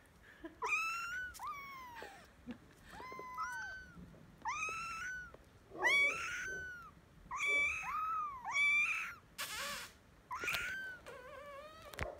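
Several oriental kittens mewing: a run of about a dozen high, thin calls, each rising and falling in pitch, some overlapping from more than one kitten.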